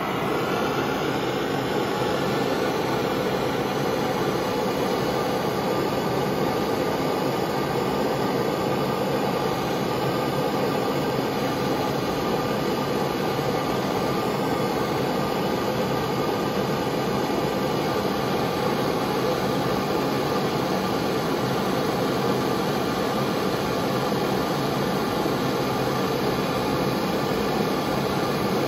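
Handheld gas torch burning with a steady hiss, its flame heating a copper pipe joint for soldering with lead-free solder.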